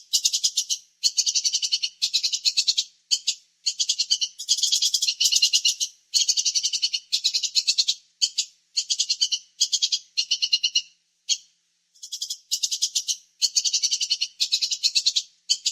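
Rattling, chirp-like animal calls: trains of rapid, high-pitched pulses about a second long, repeated over and over with short silent gaps between them.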